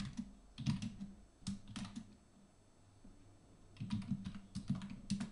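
Computer keyboard typing: short runs of key clicks, a pause of about a second and a half in the middle, then a faster run of keystrokes near the end.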